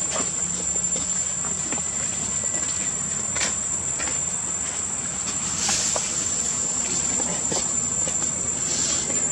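Insects buzzing in one steady high-pitched tone, with a few light clicks and rustles over it.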